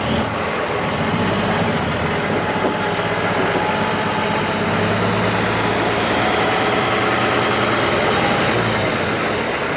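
Diesel engine of a heavy military tractor truck running steadily as it pulls an empty multi-axle lowboy trailer slowly along a gravel road.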